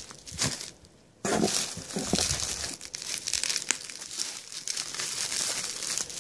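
Plastic bubble wrap crinkling and rustling as a wrapped jar is handled and lifted out of a box. It is a dense crackle that starts about a second in, after a brief rustle.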